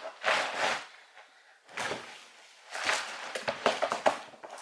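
Household handling sounds: two short swishes, then a quick run of clicks and knocks about three seconds in.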